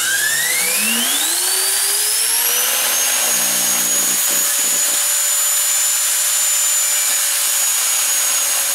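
Bissell floor cleaner's Ametek-built universal vacuum motor, fed power straight to its brushes, spinning up with a rising whine that levels off to a steady high pitch about three seconds in. Its brushes and commutator are arcing and throwing sparks as the motor is run to destruction.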